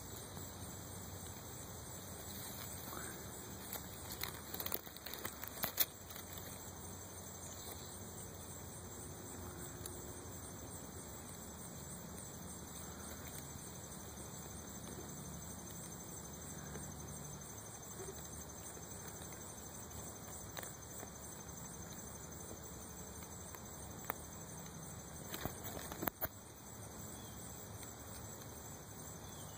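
Faint outdoor background noise: a steady low hiss, with a few soft clicks and taps clustered about four to six seconds in and again near the end.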